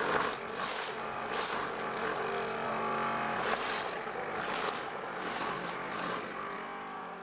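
Homemade corn sheller driven by a used Sanyo water-pump motor, running steadily while its rubber fingers strip kernels off a cob, with repeated rasping bursts about once or twice a second as the kernels are knocked loose.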